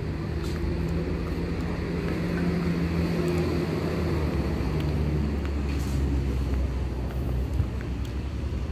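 Steady low hum of a nearby engine, its pitch line shifting lower a little past halfway through.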